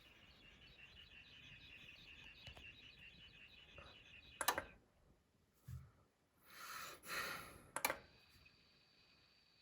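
Emotiva A-300 power amplifier whistling and hissing in operation: a faint, high-pitched whistle with a fast warbling chirp for the first four seconds or so. Then come a couple of sharp clicks, a dull thump and a short rush of noise, and near the end a steadier, higher whistle.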